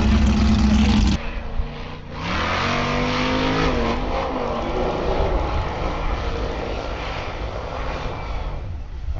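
Formula Offroad racing buggy engine running hard at high revs, cut off abruptly about a second in. Then another buggy's engine revs up with a rising pitch and holds at full throttle over the hiss of water spray as it skims across water.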